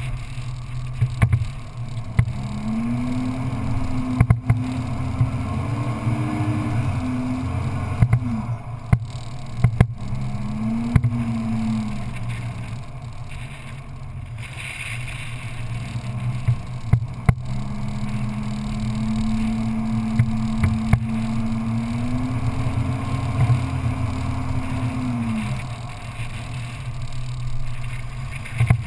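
Off-road vehicle's engine running while driving on a sand track, its revs rising and falling several times, with a long steady stretch in the second half. Short knocks and rattles from bumps are scattered throughout.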